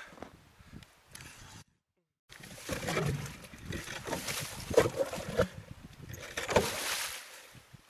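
Hand-cranked ice auger boring through lake ice, its blades grinding and scraping in uneven surges as the brace is turned. A brief break of silence about two seconds in.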